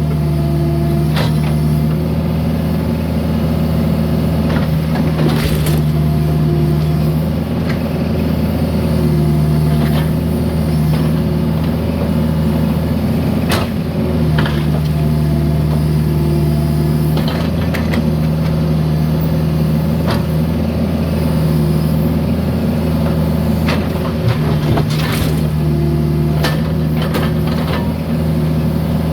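Mini excavator's diesel engine running steadily under load, with scattered sharp clanks and scrapes as the bucket works broken concrete.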